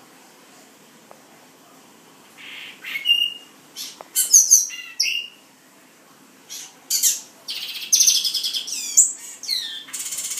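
Male black-and-white seedeater singing: two song phrases of quick, high, sweeping notes separated by a short pause, the first beginning about two and a half seconds in and the second holding a fast trill.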